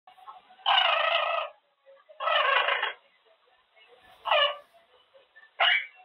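Quaker parrot calling four times: two longer calls in the first three seconds, then two short ones.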